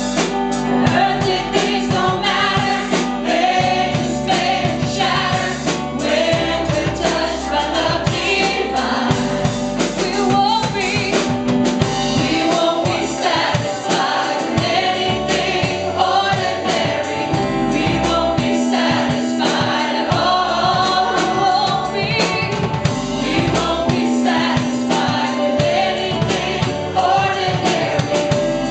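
Choir singing a gospel song over instrumental accompaniment with a steady beat.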